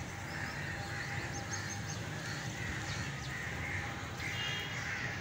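Crows cawing now and then against a steady outdoor background, with one clearer call a little after four seconds in.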